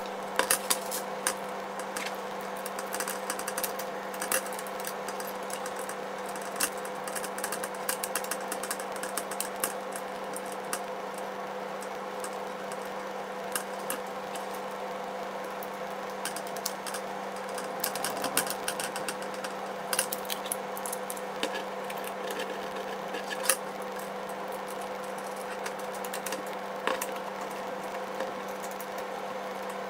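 Scattered small clicks and taps of a screwdriver, screws and a brushless motor being handled while the motor is screwed onto a quadcopter frame, over a steady hum.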